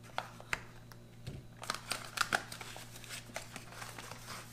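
A folding knife slits the sticker seal on a cardboard ration box with a couple of sharp clicks. From about two seconds in, the box flaps are pulled open and the cardboard and packaging inside crinkle and rustle.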